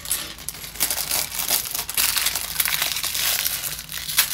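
Clear plastic LEGO parts bag crinkling as it is handled, with light clicks of loose plastic bricks being moved about on the table.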